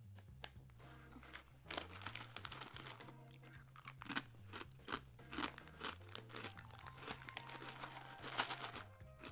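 Garlic rye bread chips being bitten and chewed: a run of irregular, crisp crunches, the loudest near the end.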